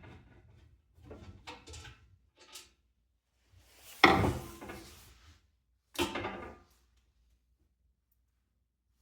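Knocks and scrapes of a box fan being handled and taken apart: rubbing and light clatter at first, then a sharp knock about four seconds in and a second knock about six seconds in.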